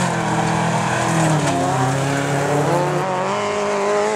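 Lancia Delta 16v's turbocharged four-cylinder engine working hard on a dirt track, its pitch dropping and climbing again as the driver lifts off and gets back on the throttle.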